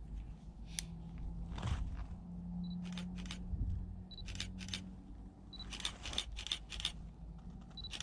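Canon digital SLR with a 55–250 mm telephoto lens taking pictures: a short high beep, the focus-confirmation signal, then a quick run of shutter clicks. This repeats several times, with the longest run of about five clicks around six seconds in.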